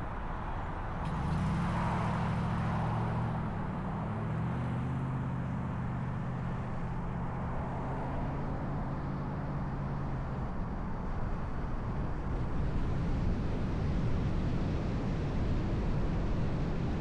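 Car driving on a road: steady road noise, with a low engine hum from about a second in until about halfway through, and a brief swell of hiss near the start.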